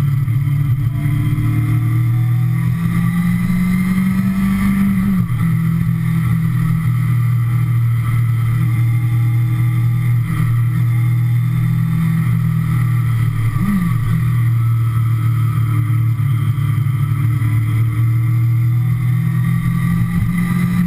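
Kawasaki ZX-6R inline-four sportbike engine running at a steady cruise on the road. The revs rise slightly about four seconds in, and there is a quick rev up and straight back down about two thirds of the way through.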